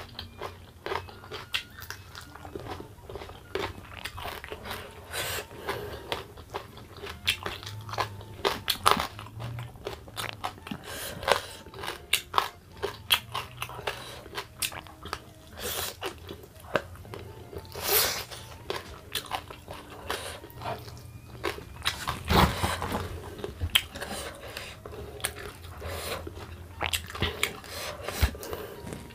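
Close-up eating sounds as a man eats grilled fish and rice by hand: chewing and crunching with frequent wet mouth clicks and smacks. A louder crunch comes about 18 seconds in and another about 22 seconds in.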